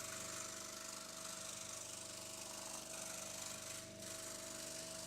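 Proxxon DS 460 scroll saw running: its induction motor and reciprocating blade make a faint, steady hum.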